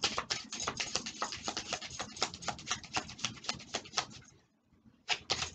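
Tarot cards being shuffled by hand: a quick run of papery flicks, about eight a second, that stops about four seconds in, with a few more flicks near the end.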